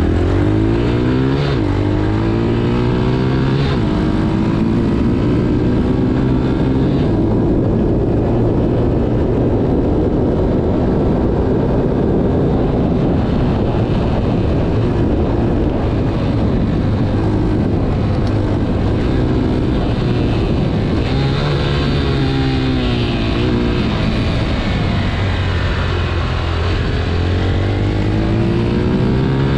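Motorcycle engine pulling away and picking up speed, then cruising with wind rushing over the bike-mounted microphone. Its pitch drops and climbs again about two-thirds of the way through, and rises once more near the end as it accelerates.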